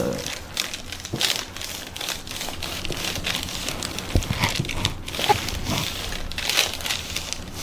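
Irregular rustling and crinkling of clothing and table cover as people move on a chiropractic adjusting table.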